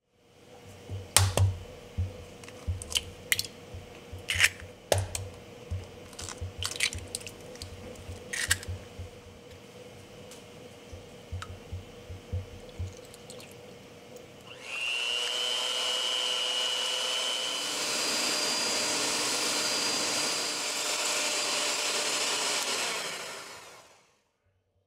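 Sharp clicks and knocks of eggs being cracked and ingredients handled over a glass mixing bowl. About fifteen seconds in, an electric kitchen appliance's motor starts and runs steadily for about nine seconds, then stops.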